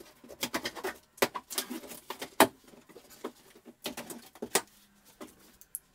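Cardboard shipping box being cut open with scissors and its taped top pulled open: a run of irregular clicks, snips and rustles of tape and cardboard, the loudest a sharp snap about two and a half seconds in.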